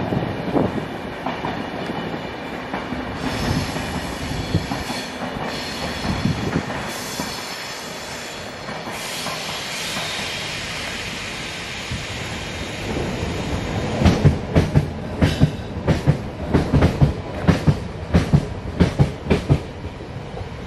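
Steady rumble of a passing train, with a high whine over it for much of the first half. From about 14 s on come loud, regular steps about twice a second, walking on a path covered in fallen leaves.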